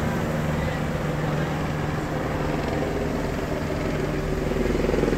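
A motor engine runs steadily over the wash of surf, and a second, higher engine note grows louder near the end.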